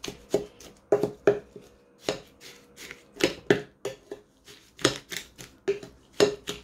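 Wooden spatula mashing diced lemon with sugar in a glass bowl: repeated knocks and scrapes of wood on glass, irregular and often in pairs, about two a second.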